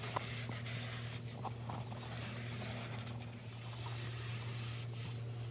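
A steady low hum, with faint rubbing and a few light knocks from a cloth rag being wiped along a sliding screen door's aluminium track.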